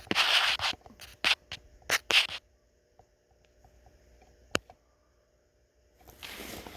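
Handling noise of hands working with the oil filter parts: a run of short scrapes and knocks over the first two seconds or so, then quiet with a single sharp click past the middle, and a rustling, shuffling noise starting near the end.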